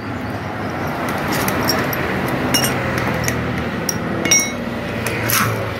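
Metal hand tools and loose motorcycle engine parts clinking and clicking in short, irregular taps during a hand teardown of the engine, over a steady hum.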